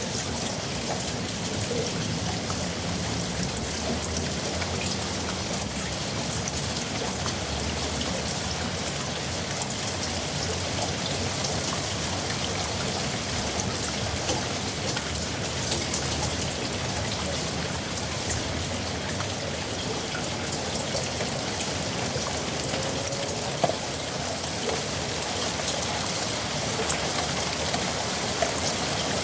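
Heavy rain falling steadily, a dense hiss of drops hitting surfaces, with a few sharper individual drop hits standing out.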